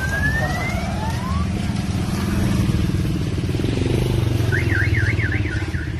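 Motorcycle tricycle engine running as it drives past, pitch rising as it speeds up in the first second, over a steady drone of traffic. About four and a half seconds in, a warbling electronic alarm starts, rising and falling rapidly in pitch.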